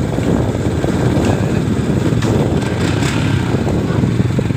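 Steady motorcycle engine and road noise, a continuous low rumble with no breaks.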